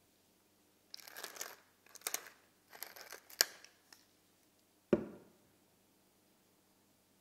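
Pepper mill grinding black pepper in three short crunchy bursts, followed by a single knock about five seconds in.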